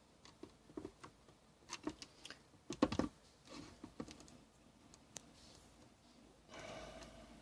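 Irregular clicks and taps of small hard plastic parts being handled, with a cluster of louder knocks about three seconds in and a brief rustle near the end, as a camcorder battery and its wall charger are handled.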